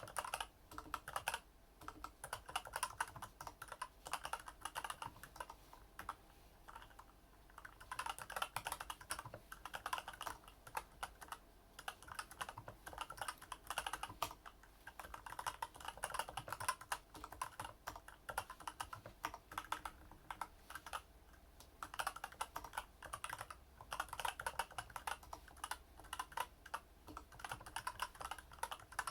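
Typing on a Varmilo mechanical keyboard with Daisy switches: a dense, uneven run of keystroke clicks, with a pause of about two seconds about six seconds in.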